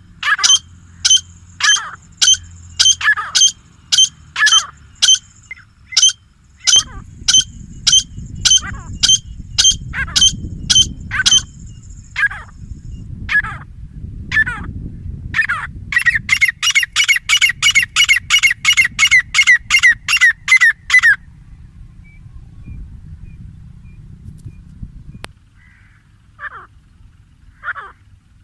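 A grey francolin pair calling: loud, sharp, ringing notes repeated about twice a second, thinning out after about twelve seconds. At about sixteen seconds they break into a rapid run of about five notes a second that stops abruptly just past twenty-one seconds, and only a few scattered notes follow.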